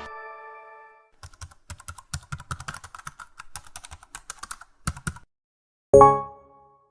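Typing on a computer keyboard: quick, irregular key clicks for about four seconds, as a sound effect. It opens on the fading ring of a previous tone, and about six seconds in a sudden louder hit with a ringing tone fades out within a second.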